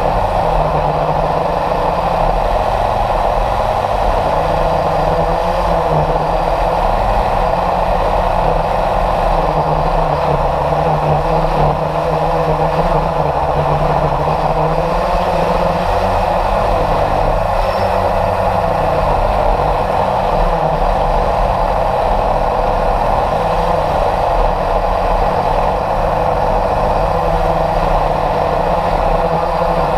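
Radio-controlled model jet in flight, heard from a camera mounted on the plane: a loud, steady drone of its motor mixed with air rushing over the microphone, with no change in pitch or level.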